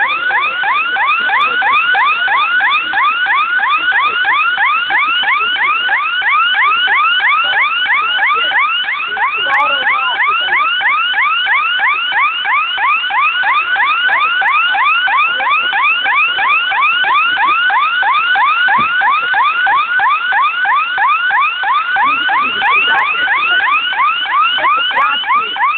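Car alarm siren sounding continuously: a fast run of identical rising whoops, about three a second, without a break.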